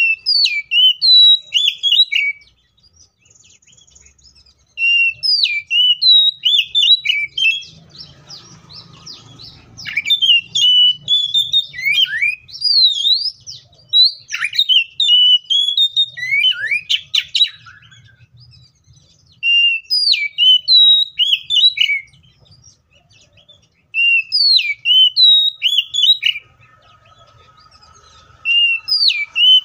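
Oriental magpie-robin (kacer) in full song, fast whistled phrases that sweep up and down, in bouts of a few seconds with short pauses between them. The longest bout, about ten seconds, comes in the middle.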